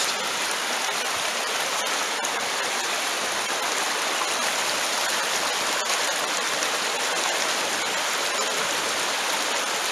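Creek water running over a shallow rocky bed: a steady, even rush.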